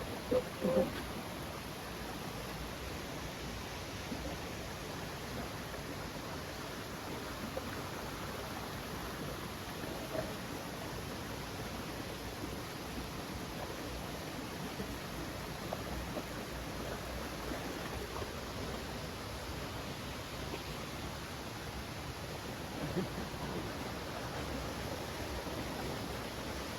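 Steady rushing of water from a waterfall, an even hiss without change.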